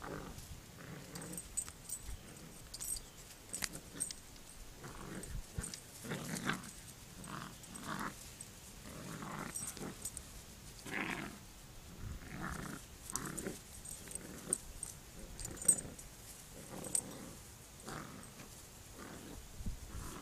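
A puppy and a larger dog growling in play while tugging on a plush toy between them, in many short irregular bursts.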